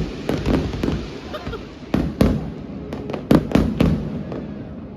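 Fireworks going off: an irregular series of sharp bangs and crackles that thins out and gets quieter near the end.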